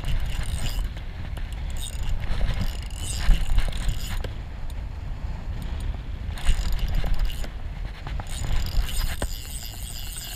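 A large spinning reel being cranked by hand, its gears and rotor whirring and clicking as line is wound in, over a steady low rumble.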